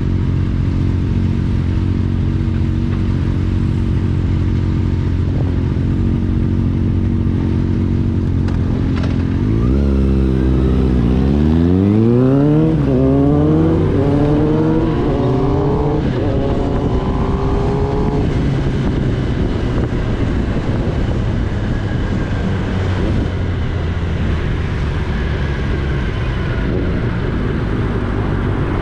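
Kawasaki Ninja ZX-10R's inline-four engine idling steadily, then accelerating hard as the bike pulls away: about four rising sweeps in pitch, each broken off by an upshift. After that it runs on at a steady riding speed.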